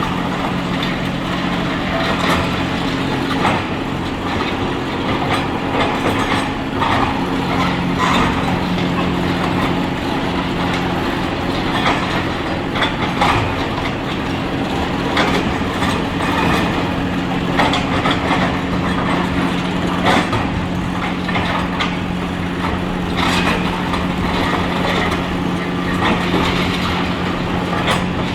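Diesel excavator engine running steadily under load, with irregular clanks, cracks and crunches of demolition debris being broken and moved.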